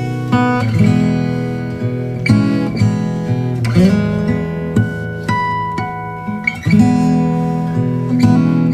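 Background music played on acoustic guitar: plucked and strummed chords with sustained notes.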